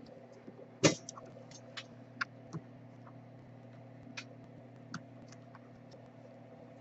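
Scattered light clicks and taps of a small plastic hotspot being put back together by hand, over a steady low electrical hum. The sharpest click comes about a second in.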